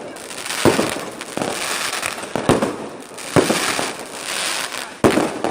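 Fireworks going off: four or five sharp bangs about a second apart, with crackling between them.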